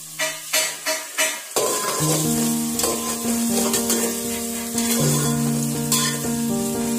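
Sliced onions frying in oil in a steel pot, stirred with a metal spatula; the sizzle grows louder about a second and a half in. Soft background music with held notes plays under it.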